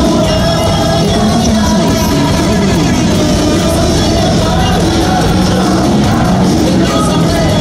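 Baseball cheer song played loudly over stadium loudspeakers, with fans singing along.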